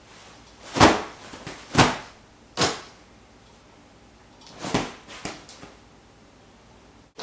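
Throw pillows being hurled and landing with soft thumps: three loud hits about a second apart, then a few quieter ones.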